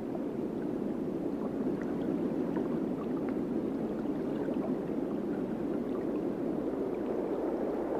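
Steady low gurgling, rushing water sound with faint scattered clicks throughout, like an underwater ambience.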